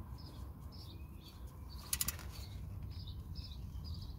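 A small ratchet gives a brief rattle of clicks about two seconds in as the oil sump drain plug is snugged up, the loudest sound here. Small birds chirp repeatedly and lightly in the background over a low outdoor rumble.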